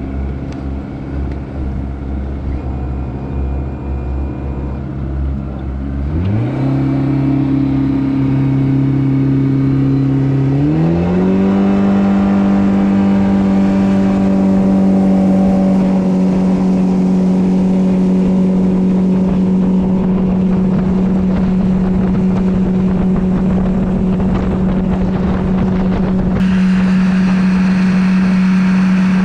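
Yamaha 80 jet-drive outboard on an aluminum jet boat, running slowly and then throttled up in two steps, about six and eleven seconds in, to a steady cruising drone, with the hiss of water and wind.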